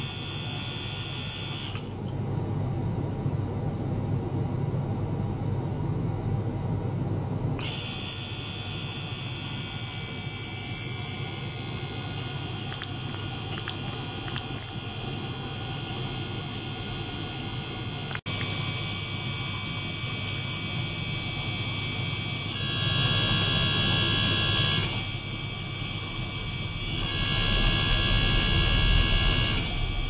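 Ultrasonic transducer driven in a beaker of water, giving off a steady electrical buzz made of several high tones over a low rumble. The high tones drop out about two seconds in and return some five seconds later. A sharp click comes a little past halfway, and the tone pattern shifts several times near the end as the oscillation changes.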